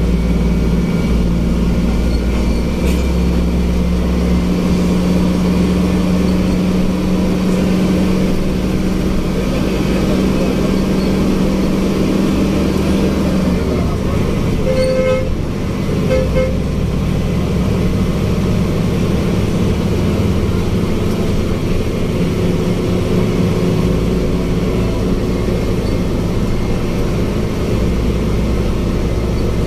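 Hino AK8 bus's diesel engine and road noise heard from inside the driver's cab while cruising, a steady low drone that eases a little about halfway. A few short horn toots sound about halfway through.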